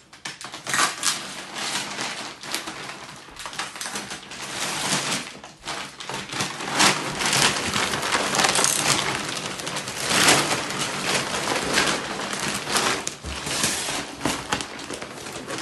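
Brown kraft paper wrapping of a large parcel crinkling and tearing as it is pulled open by hand, with plastic wrap rustling inside: a dense, irregular run of crackles.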